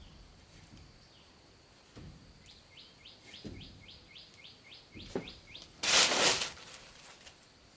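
A bird calling a rapid run of about ten short, downward-sliding chirps, over a faint steady high-pitched hum, with a few soft knocks. About six seconds in, a brief loud rasping noise.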